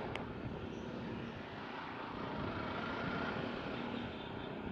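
Single-cylinder Suzuki Gixxer 155 motorcycle engine running steadily under way, over a steady rush of wind and road noise.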